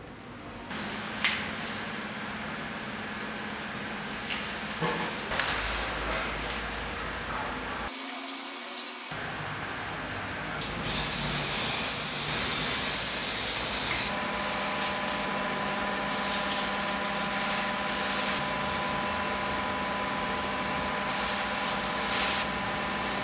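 Aerosol spray paint can hissing in one steady burst of about three seconds near the middle, the loudest sound here. Around it come quieter scratching and rustling as plastic sheet is cut and handled.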